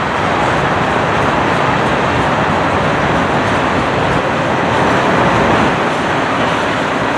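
Canadian Pacific freight train's tank cars rolling past on steel rails: a loud, steady noise of wheels running on the track.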